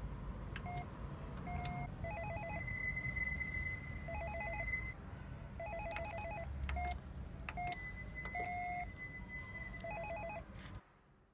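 Apartment-building door intercom panel: short electronic beeps as keys are pressed, then repeated fast trilling call tones while it rings a flat. The tones cut off suddenly just before the end.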